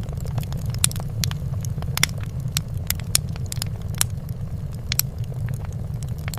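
Fire crackling in a fireplace: irregular sharp pops, two or three a second, over a steady low rumble.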